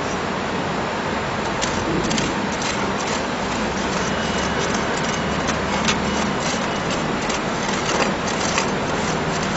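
Lining rammer compacting dry refractory ramming mix for an induction furnace lining: a steady machine noise, with scattered sharp ticks and clicks from about one and a half seconds in.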